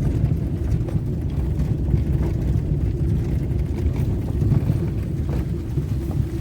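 Car driving slowly over a rough, overgrown forest dirt track: a steady low rumble of engine and tyres, with a few faint knocks from bumps in the track.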